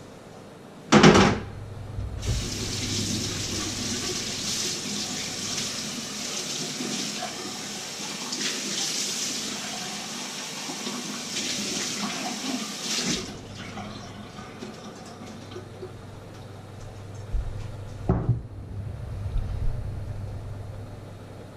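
Kitchen tap running into a metal sink for about eleven seconds, then shut off abruptly. A loud knock comes just before the water starts, and a few lighter knocks come near the end.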